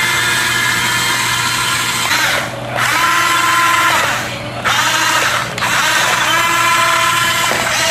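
Small electric gear motors of a radio-controlled tracked crawler, running on Huina 1550 excavator tracks, whining steadily as it drives. The pitch bends with speed, and the sound dips briefly a few times as the throttle is eased off.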